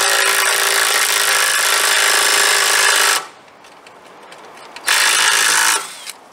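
Power tool running flat out while a fastener on the bus's engine mount is taken off: one long run that stops about three seconds in, then a second short burst about five seconds in.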